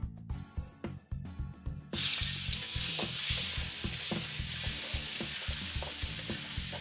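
Chopped garlic and salted fish sizzling in hot oil in a wok, stir-fried with a spatula that scrapes and taps against the pan. The sizzle starts suddenly about two seconds in and then holds steady.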